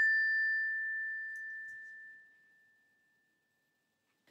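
A small bell struck once, its single clear tone ringing and fading away over about two seconds: the signal to turn the page of a read-aloud picture book.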